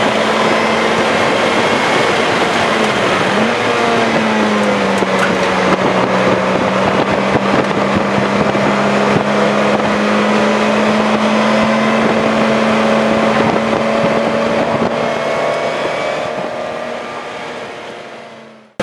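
A 2007 Lotus Exige S's supercharged four-cylinder engine, heard from inside the cabin, running at a steady pitch under way with road and wind noise. The engine note dips briefly about three seconds in, then holds steady, and fades out near the end.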